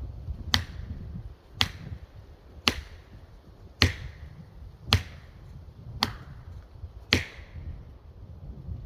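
Axe chopping into wood: seven sharp blows, about one a second, each with a short ringing tail.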